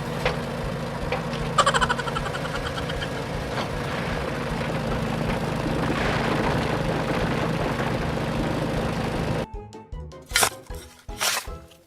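Background music over a steady low mechanical hum. About nine and a half seconds in, the hum cuts off suddenly and a few sharp percussive hits follow.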